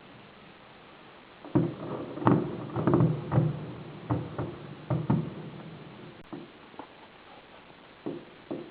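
Fireworks shells bursting: a quick run of bangs starting about a second and a half in, thinning to scattered single bangs near the end.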